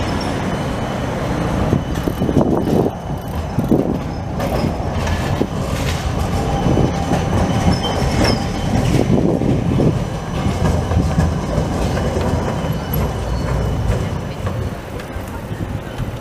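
Electric tram passing close by, its wheels rumbling and clicking over the street-running rails and track crossings, easing off a little near the end as it moves away.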